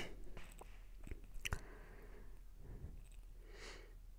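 Faint, scattered small clicks and a soft rustle close to the microphone, over a low steady electrical hum.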